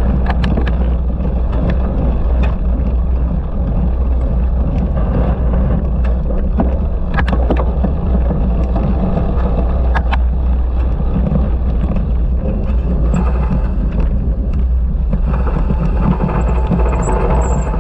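Cyclocross bike ridden at race pace: a loud, steady rumble of wind on the microphone and tyres on rough ground, with sharp clicks and knocks from the bike a few times.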